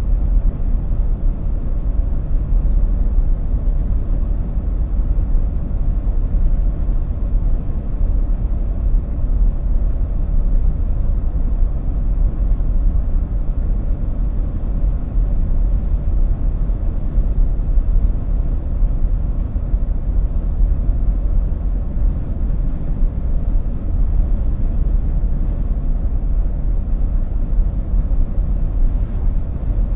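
Inside a moving car: a steady low rumble of tyres on the road and the engine at a constant cruising speed, with no changes.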